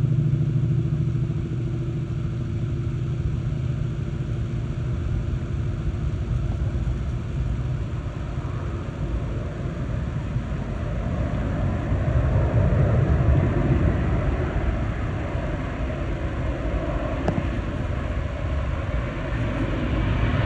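Lockheed C-5M Super Galaxy's four turbofan engines on landing approach: a steady low rumble, with higher-pitched jet noise building over the second half as the aircraft draws closer.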